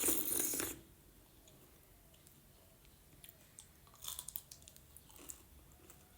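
Close-up mukbang eating sounds of white-maize dhido with thin nettle soup: a loud wet mouthful right at the start, then quieter chewing and smacking clicks, busiest about four seconds in.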